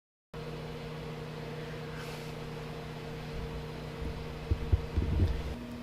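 Microwave oven running with a steady hum. A few low thumps near the end.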